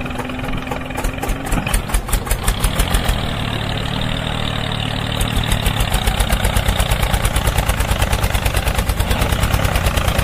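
Tractor engine chugging steadily in an even rhythm, growing louder and more regular about five seconds in.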